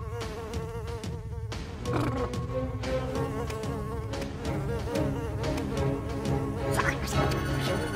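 Cartoon mosquito-like insect buzzing as it hovers and flies, a steady wavering drone, over a background music score.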